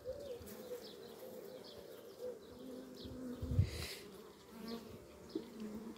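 Honeybees buzzing on a brood frame held out of an open hive: a faint, steady hum. A brief low bump comes a little past halfway.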